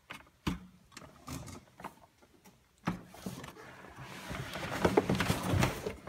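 Handling noise among rubber hoses and plastic fittings. There is a sharp knock about half a second in and another near the middle, then rustling and clattering with scattered clicks that grows louder over the last three seconds.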